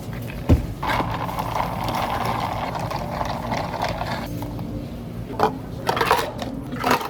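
Drink-preparation handling sounds at a cafe counter: a knock, then a steady rushing noise for about three seconds, then a few sharp knocks and clinks.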